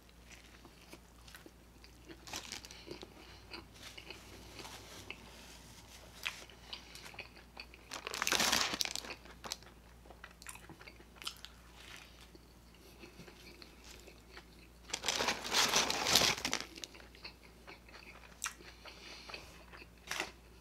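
Close-up eating sounds of a person biting and chewing a fast-food burger: crunching bites and small wet mouth clicks, with two louder stretches about eight and fifteen seconds in.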